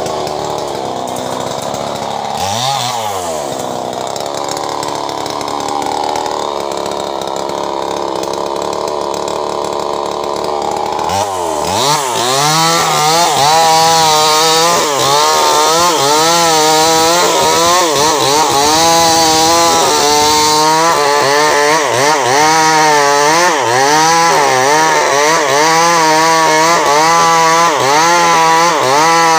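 Stihl 070 two-stroke chainsaw running at low speed with one brief rev about three seconds in. About eleven seconds in it opens up to full throttle and cuts through a log, getting louder, its pitch rising and dipping over and over as the chain bites into the wood.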